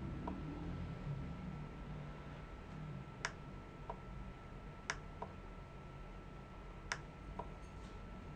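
Computer mouse button clicking about three times, each sharp click followed a moment later by a fainter one, over a faint steady whine.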